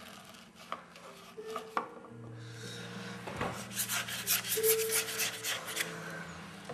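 Quick rubbing strokes of an art tool across a painting surface: a few scattered scratches, then a fast run of about five strokes a second a little past the middle.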